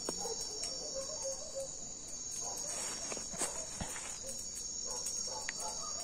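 Night insects, crickets among them, chirring steadily in high tones, with a few soft knocks and rustles about halfway through.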